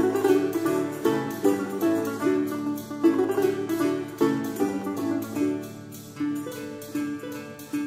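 Background music: a plucked string instrument playing a melody of quick picked notes, each note sounding and fading.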